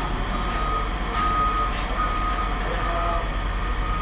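A vehicle's reversing alarm beeping about once a second over the steady low rumble of an engine.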